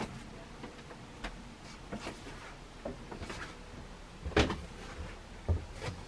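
A few scattered knocks and clunks, with the loudest, a low thump, about four and a half seconds in and another a second later.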